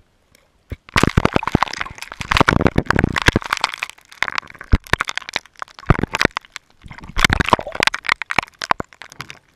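A camera's waterproof housing being jostled in an ice-fishing hole, with rapid, irregular cracking and knocking against the ice edge and churned water. It starts about a second in and runs with a few short breaks.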